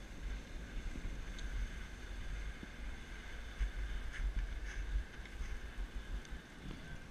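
Wind buffeting an action camera's microphone while snowboarding, with a steady hiss of the board sliding over packed snow.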